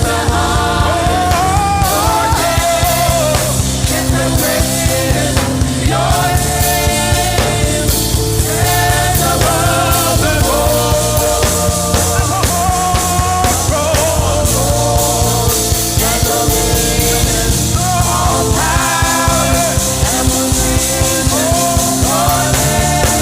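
Gospel praise song: voices singing a melody over a band with a steady drum beat and bass.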